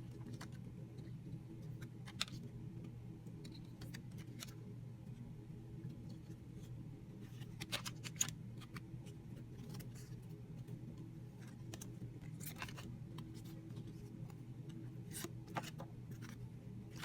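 Trading cards being handled and flicked through, with scattered light clicks and rustles, a sharper click about two seconds in and another about eight seconds in, over a steady low hum.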